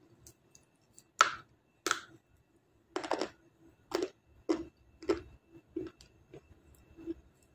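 Crunchy bites into a dry white lump of edible clay, then chewing: a loud crunch about a second in, another just after, then a run of crunches about every half second that fade toward the end.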